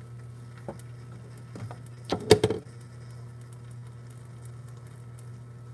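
Kitchen clatter at a griddle: a few light clicks, then a short burst of clattering knocks about two seconds in, as batter bottles and utensils are handled, over a steady low hum.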